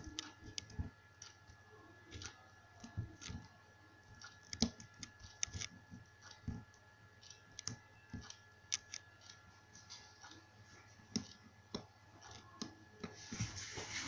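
Irregular soft clicks and taps from a computer mouse, with a faint steady high electronic whine underneath and a brief rush of hiss near the end.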